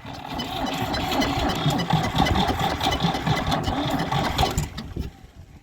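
Ford 3000 three-cylinder diesel tractor engine being cranked over in freezing cold, turning unevenly with knocking as it tries to fire. The cranking stops about four and a half seconds in, leaving a short lull.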